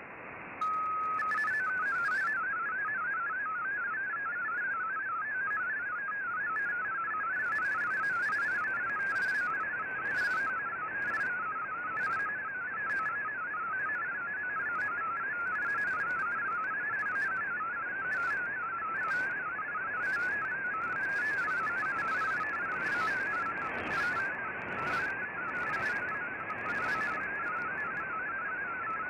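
MFSK32 digital text signal from the Shortwave Radiogram broadcast, heard through an Icom IC-R8600 shortwave receiver in AM: a fast warbling stream of tones hopping up and down around 1.5 kHz over a steady hiss of band noise. It begins about half a second in with a short steady tone before the warble starts.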